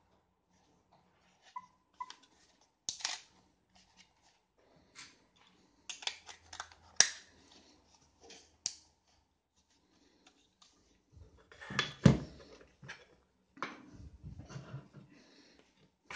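Hands handling a camera and its packaging: scattered clicks, taps and rustles, with a sharp click about seven seconds in and a heavier knock with rustling about twelve seconds in.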